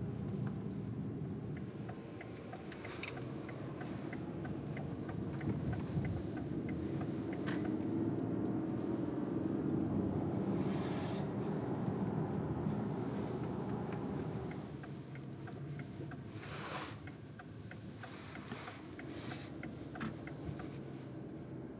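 Car cabin noise while driving: a steady low rumble of road and engine heard from inside the car, growing somewhat in the middle and getting quieter in the last several seconds.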